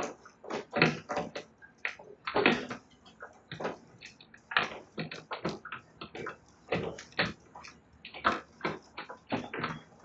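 Sulphur-crested cockatoos chewing the timber verandah rail with their beaks: an irregular run of short crunching cracks and clicks, several a second, as the wood is bitten and splintered.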